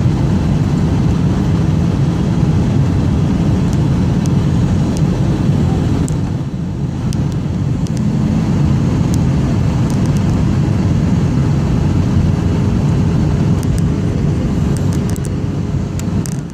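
Steady low roar of jet engines and rushing air heard inside a JetBlue airliner's cabin, with a faint steady hum. The noise eases briefly about six and a half seconds in.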